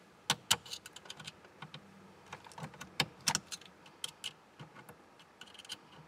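Irregular light metallic clicks and taps from work on a car's steering column: the lock ring being pushed down toward its groove on the shaft, with a lock plate compressor tool in place. The sharpest clicks come just after the start and again about three seconds in.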